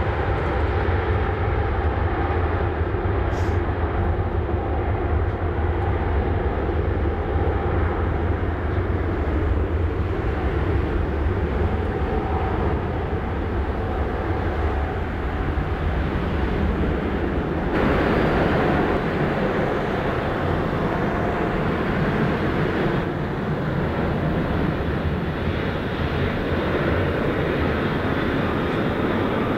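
Boeing 777-300 airliner's twin jet engines running steadily at taxi power: a deep rumble with faint whining tones. About 18 seconds in the sound changes abruptly to a brighter, hissier jet rush.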